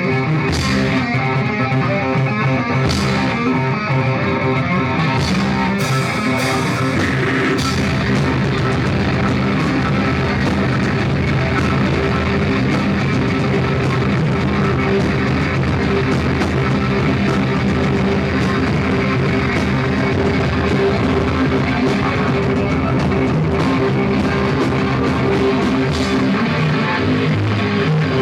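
Rock band playing live, poorly recorded: guitar and drum kit, loud and steady, with sharp separate hits in the first few seconds before the playing fills in densely.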